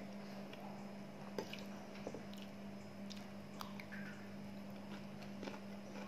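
Mouth sounds of chewing fried rice and egg, with a few short clicks of a metal spoon and fork against a ceramic bowl, over a steady low hum.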